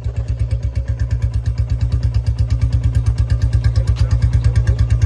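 Royal Enfield Classic Reborn 2023 350 cc single-cylinder engine idling through a C-bend header and short-bottle silencer. It gives an even, deep thump at about eight beats a second.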